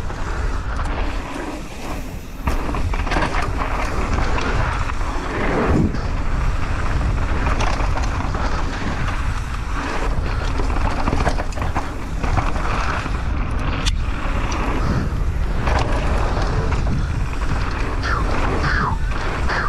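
Mountain bike ridden fast down a dirt trail: wind buffeting the microphone with a deep rumble, over the steady rattle and rush of tyres and frame on the trail.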